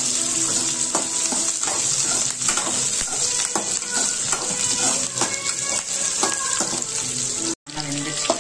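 Shallots and garlic sizzling in sesame oil in an aluminium kadai, with a steady hiss and the clicks and scrapes of a metal spatula stirring them against the pan.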